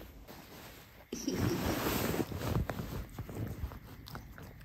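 Bedsheets rustling and soft handling noises as a small dog is petted in bed and nuzzles its owner's hand, starting abruptly about a second in.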